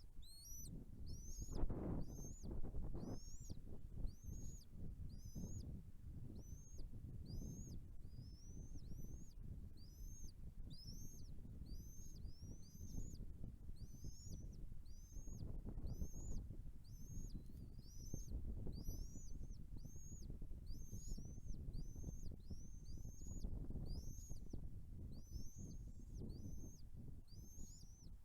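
Nestling birds calling over and over in high, thin chirps, about two a second, typical of chicks begging for food in the nest. A low rumble runs underneath, swelling now and then.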